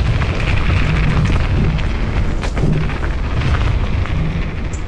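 Loud wind buffeting and rumble on a GoPro Hero 9's microphone, mounted on a mountain biker's helmet on an extension arm, mixed with the bike rattling over the trail during a fast descent.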